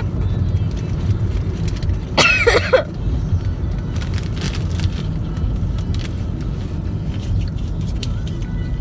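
Steady low road and engine rumble inside the cabin of a moving car. A short, high voice sound about two seconds in.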